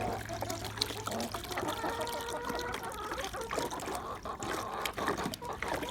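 Water pouring and trickling, as when a poultry waterer is filled. A short pitched call from the poultry comes about two seconds in.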